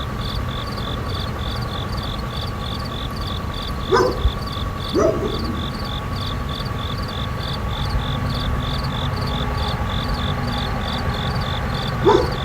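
Nature ambience of crickets chirping in a steady pulsing rhythm, about three chirps a second, over a steady high insect drone and a low rumble. Three short louder animal calls break in about four, five and twelve seconds in.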